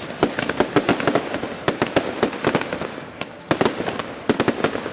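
Aerial fireworks bursting in quick succession: a rapid, irregular string of sharp bangs and crackling pops, with a brief lull about three seconds in.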